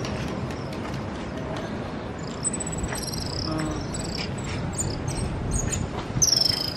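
Outdoor ambience: a steady background hiss with scattered light clicks, and short high-pitched animal chirps from about two seconds in, the loudest near the end.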